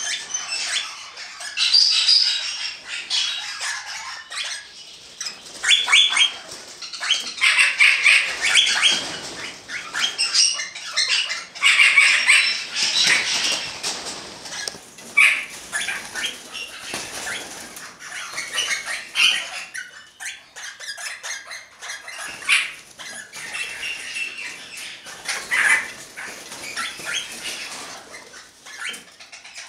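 Barnard's parakeets calling: bursts of rapid, sharp, repeated notes, broken by short pauses, with wing flapping near the end.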